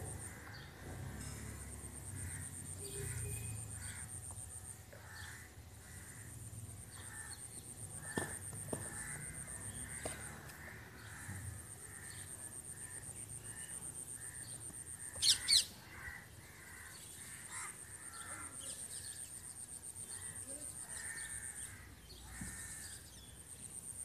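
Outdoor ambience of birds calling in the background over a steady high-pitched pulsing trill that breaks off now and then, with two short sharp high sounds about fifteen seconds in.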